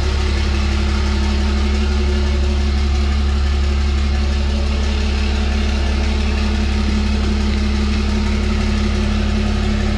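6.7-litre Cummins turbo-diesel inline-six idling steadily, running just after its first start.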